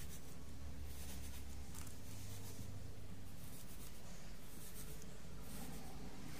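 Faint soft scratching of a wooden skewer being pushed into wet rockwool to make seed holes, over a steady low hum.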